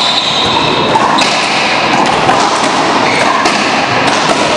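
Racquetball rally: a few sharp cracks of the ball hitting racquets and court walls, about a second apart at most, among duller thuds.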